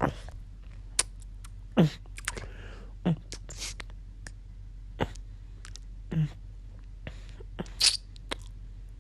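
Close-miked mouth sounds: wet lip smacks and sucking clicks with a few short, low gulps, performed as drinking blood from a bitten neck.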